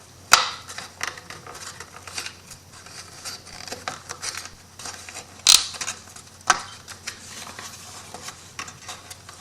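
Thin MDF wood pieces clicking and knocking as their tabs are pushed into slots, with light scraping and handling between. Three sharper clicks stand out, one near the start and two more past the middle.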